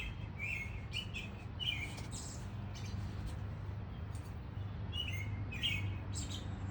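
Garden songbirds chirping in quick runs of short, falling notes, in two spells: through the first two seconds and again from about five seconds in. A steady low hum runs underneath.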